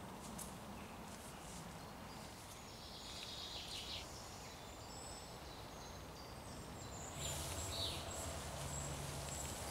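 Woodland birds singing short whistled phrases over faint outdoor background noise. A low steady rumble joins about seven seconds in.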